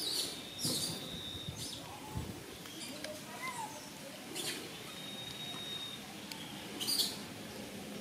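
Faint high squeaks and chirps from small animals, with a thin steady high whistle twice and a few brief rustling noises, the loudest about seven seconds in.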